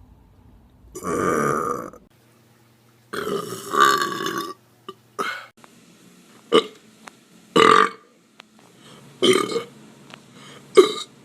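A string of loud, deliberate burps: one about a second long, then a longer drawn-out belch, then five or so short sharp burps with short gaps between them.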